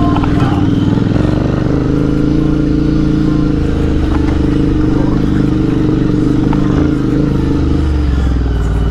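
Royal Enfield motorcycle engine running at a steady, even pace while riding, with no revving or gear changes.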